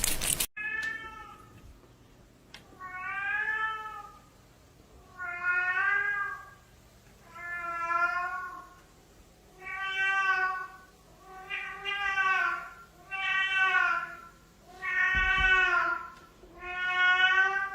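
A cat meowing over and over, long drawn-out meows about every two seconds, each slightly rising then falling in pitch.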